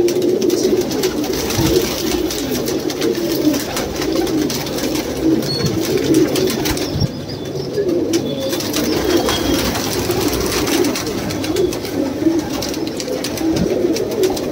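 A crowd of caged domestic pigeons cooing together, a dense overlapping chorus of low coos, with scattered short clicks throughout.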